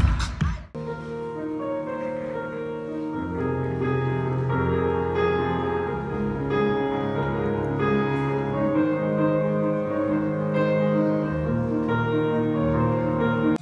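A grand piano played solo: a slow piece of held notes and chords. Before it, a fraction of a second of louder music cuts off abruptly.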